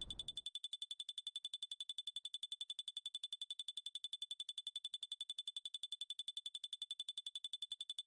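Electronic alarm beeper sounding rapidly at one high, steady pitch, about ten beeps a second, at an even level.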